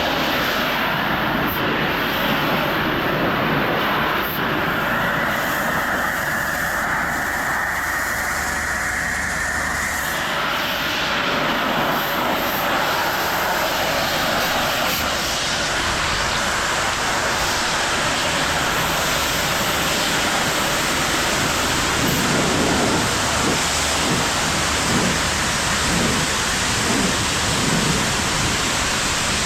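Pressure washer spraying steadily: a continuous hiss of the high-pressure water jet with the machine's running noise beneath it, the tone of the spray shifting about ten seconds in.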